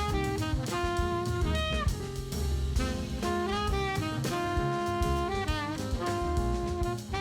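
Jazz background music: a saxophone melody of held notes with pitch bends, over a drum kit keeping a steady beat.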